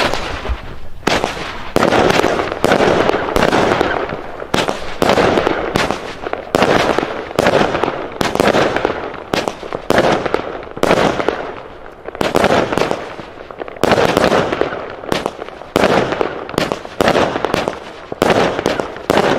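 Weco Big Surprise firework battery firing shot after shot: a rapid, irregular run of sharp reports, about two a second, each trailing off in echo.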